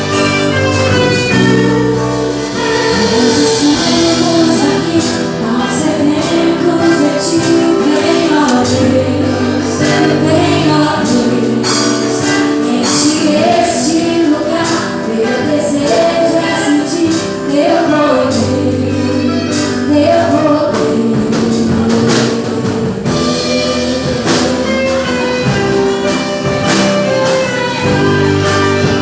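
Gospel worship music: a song sung in Portuguese over a band, with a steady beat throughout.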